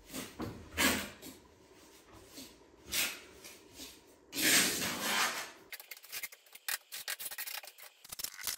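A small trowel scraping and working mortar around a shower drain on a tiled floor: several rough scraping strokes, the longest near the middle, then a run of quick light clicks and taps.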